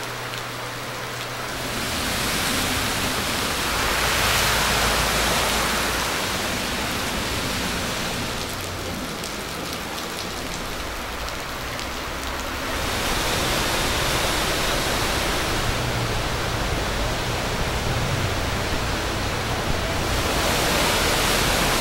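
Heavy rain and rushing storm floodwater: a steady hiss of water that swells and eases in loudness.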